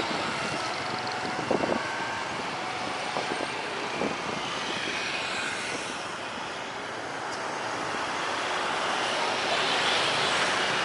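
Batik Air jet airliner on approach to land, a steady distant engine rumble mixed with road traffic noise, growing louder toward the end. A few short louder sounds stand out in the first four seconds.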